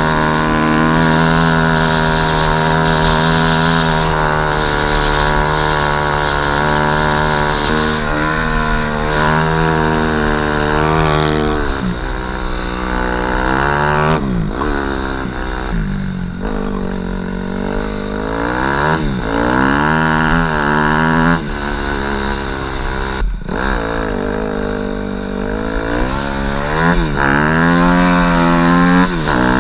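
Snow bike's dirt-bike engine running at a steady pitch, then revving up and down over and over about twelve seconds in as the bike is ridden.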